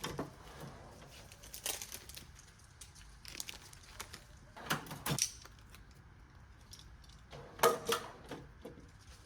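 Small parts and hand tools being handled at an engine: a scattered series of light clicks and knocks, with a louder cluster of clatter near the end.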